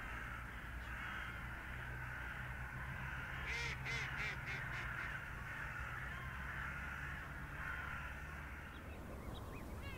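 Steady outdoor background hiss with one bird giving a quick series of about five harsh calls a little after three seconds in. A few short rising chirps follow near the end.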